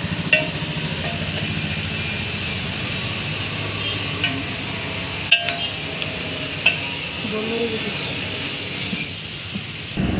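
Metal clinks and taps as a Mahindra Bolero gearbox's gear cluster and shafts are worked into the casing during reassembly: a sharp clink just after the start, then a few more around the middle, over steady background noise.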